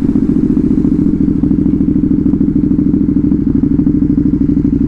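Motorcycle engine with a loud aftermarket exhaust running at steady revs, a fast, even pulsing note that holds the same pitch.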